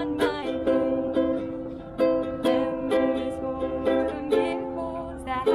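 Ukulele strummed by hand, playing a song in full chords with a steady rhythm of about two strums a second.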